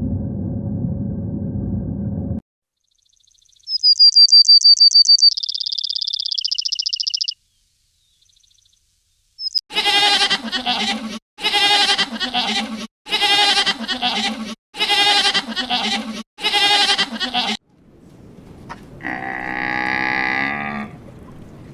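Five loud bleats in a row, evenly spaced about one and a half seconds apart, each a wavering pitched call. Before them comes a short, high-pitched rapid trill; after them, one longer, softer call.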